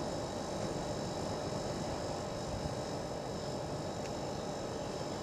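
Steady low rumble of Ivatt 2MT 2-6-0 steam locomotive 46512 drawing its coaches slowly into the station.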